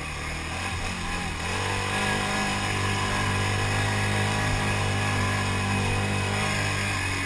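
Can-Am Outlander 1000 XMR ATV's V-twin engine running under way. It picks up revs about a second and a half in, then holds a steady pitch.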